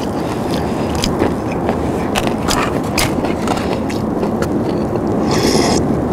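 A thin plastic pickled-radish container clicks and crackles as it is picked up and handled, with a short slurp from it about five seconds in. A steady low rumble runs underneath.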